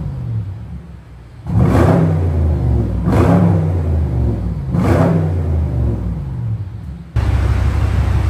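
BMW M550i's twin-turbo V8 with its muffler deleted, blipped from idle three times, each rev climbing quickly and falling back. About seven seconds in, the sound changes abruptly to a steady, louder low idle rumble.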